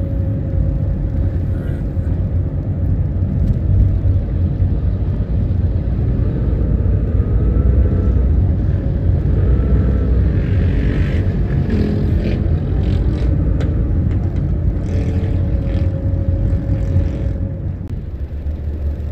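Steady low rumble of a car driving in city traffic, heard from inside the cabin, with engine and road noise from the surrounding jeepneys and motorcycles. The level drops a little near the end.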